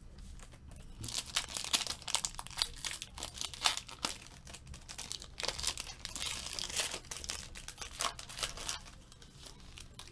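Silver foil wrapper of a 2016 Panini Kickoff football card pack being torn open and crinkled by hand, a dense run of crackles from about a second in that dies away near the end.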